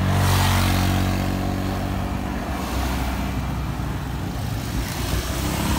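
Toyota Hilux pickup's engine running close by as the truck rolls slowly past, loudest in the first second, its pitch easing down over the next second or two, over general street traffic noise.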